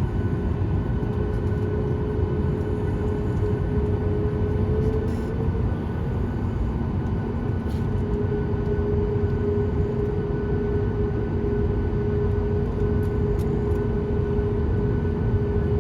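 Boeing 737 MAX 8 jet engines (CFM LEAP-1B) running, a steady low rumble with a steady hum over it that wavers briefly about five seconds in.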